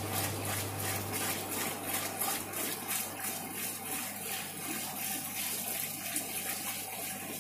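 Water pouring in a steady stream into a plastic bucket inside a glass aquarium, the bucket brimming and overflowing down its sides onto the sand bed.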